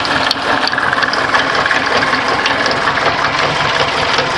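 Volkswagen air-cooled engine running with a fast, steady metallic rattle-clatter, a sign of something loose. The cause turned out to be a loose nut at the belt drive, not tightened enough when the belt was refitted.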